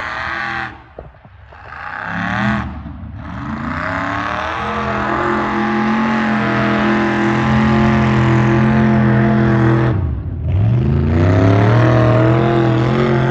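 Lifted mud-bogging truck's engine revving hard under load as it pushes through deep mud. The revs drop away briefly near the start, about three seconds in and about ten seconds in, and each time climb back and hold high.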